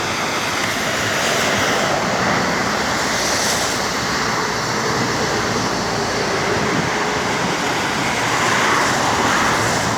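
Rain-swollen stream rushing past: a loud, steady rush of fast-flowing water.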